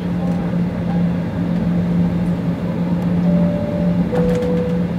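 Cabin noise of a jet airliner taxiing, heard inside the cabin: a steady engine hum over a rumble. From about three seconds in, a steady two-note tone alternates high and low, each note lasting just under a second.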